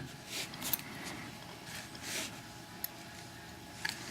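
Faint handling of small metal lock parts while a pin-tumbler cylinder is being taken apart: a few light clicks and soft rustles.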